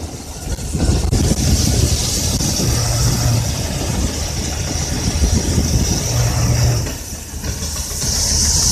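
Combine harvester running with a steady engine drone and a high hiss, dipping briefly near the start and again about seven seconds in.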